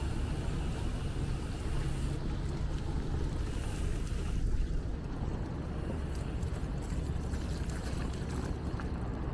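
Wind buffeting the microphone of a moving bicycle camera: a steady, fluttering low rumble.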